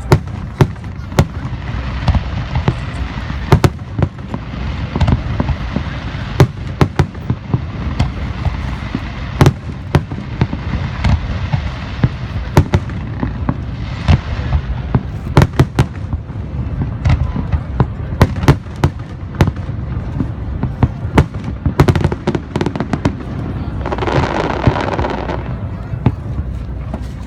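Aerial fireworks shells bursting in a rapid, irregular series of sharp bangs, several a second, over a steady low rumble. About three-quarters of the way through comes a denser, hissing patch lasting a second or so.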